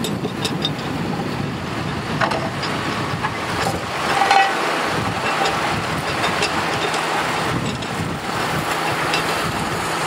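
John Deere tractor engine running steadily under load as it pulls a reversible plough through wheat stubble. A brief squeak sounds about four seconds in.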